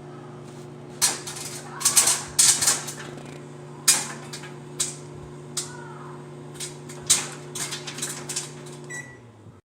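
Budgie pecking and crunching at a puffed popcorn treat: sharp, irregular clicks and crunches in quick clusters, over a steady electrical hum. The sound cuts off just before the end.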